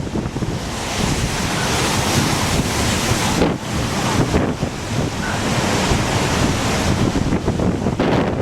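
Gusty tropical-storm wind buffeting the microphone over the steady wash of surf, rising and falling in gusts.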